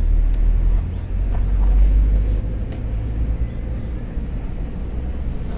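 Wind buffeting the microphone as a steady low rumble, with a few faint distant clicks. At the very end comes one sharp crack: a baseball bat hitting the pitched ball.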